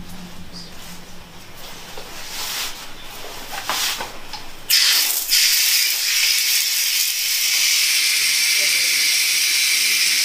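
A few soft knocks and rustles, then about halfway through a wall tap is opened. Water runs from it in a loud, steady hiss over hands being washed under it.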